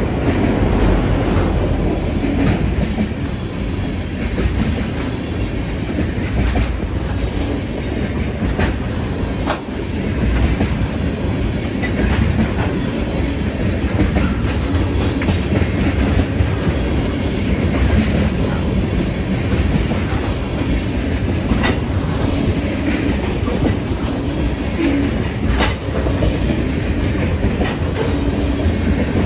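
Canadian National manifest freight train's cars rolling past close by: a steady noise of steel wheels on rail, with a few sharp metallic clicks.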